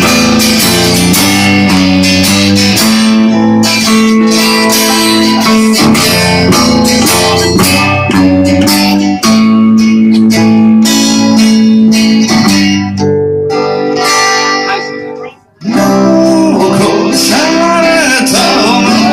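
A band playing a guitar-led song, with sustained chords over a bass line. The music drops out briefly about 15 seconds in, then comes back with a voice singing over it.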